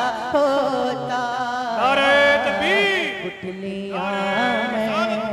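A man singing a naat (an Urdu devotional poem), holding long notes with sliding, ornamented pitch. There is a brief break about three and a half seconds in.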